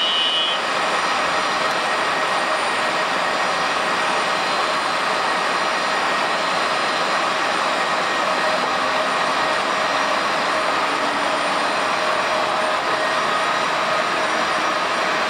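Steady jet whine from an Airbus A320-211 during pushback, holding level throughout. A short high beep sounds right at the start.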